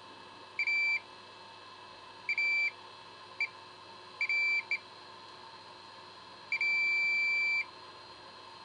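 Digital multimeter in diode-test mode beeping as its probe touches capacitor pads on a phone motherboard during a short-circuit check: a few short, high, steady beeps, then one longer beep of about a second near the end.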